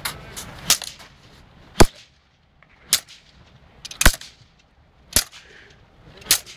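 A tennis racquet being slammed down against concrete again and again, about seven sharp cracks roughly a second apart; the frame is already bent out of shape.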